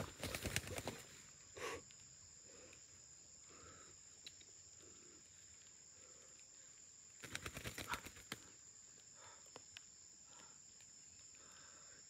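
Dry pine needles and twigs rustling and crackling under hands and knees on the forest floor, in two short spells: one at the start and one about seven seconds in. Between them only a faint, steady, high insect drone.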